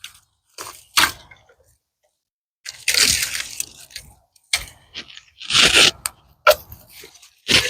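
Dry crunching and cracking of fallen dead pecan branches and twigs being broken and handled, in a series of separate crunches about a second apart. The longest and loudest come about three seconds in and just before six seconds.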